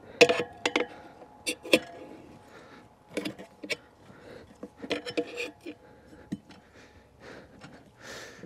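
Steel tyre levers (tire spoons) clinking and scraping against a spoked motorcycle wheel's rim as a knobby tyre's bead is levered on. Around a dozen sharp metallic clicks, some with a brief ring.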